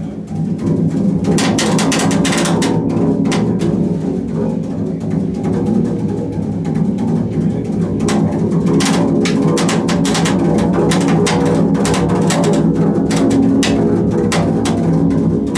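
Double bass played with a bow: a dense, sustained low drone of several notes, with many sharp, irregular clicks and scrapes over it. It swells in about a second in and then stays loud.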